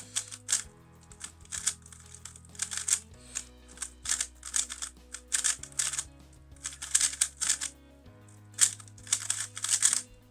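MoYu RS3M 2020 plastic speedcube being turned fast, its layers clattering in short bursts of turns, over background music with low notes that change every couple of seconds.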